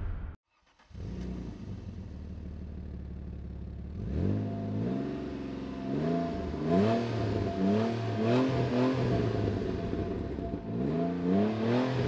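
Alfa Romeo 156's 2.5 V6 Busso engine through a Novitec exhaust, idling steadily, then revving from about four seconds in, its pitch climbing and falling back several times in quick succession, with another climb near the end.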